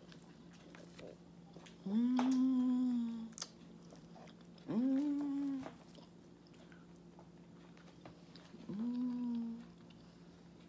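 A woman's closed-mouth "mmm" hums while she eats with her mouth full, three times, each held for about a second at a steady low pitch.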